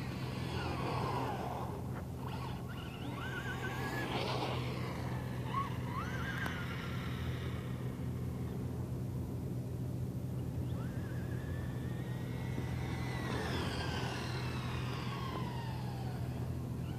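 Traxxas Slash 4x4 RC truck's electric motor on a 3S battery, whining in repeated runs whose pitch rises as it accelerates and falls as it backs off, with one long run near the end that climbs and then drops away.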